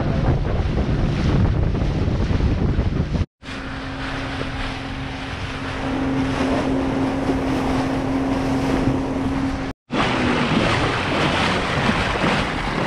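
Wind buffeting the microphone and water rushing past the hull of a fishing boat running under power. The sound cuts out briefly twice; in between, the rush is lighter and a steady engine drone holds one pitch.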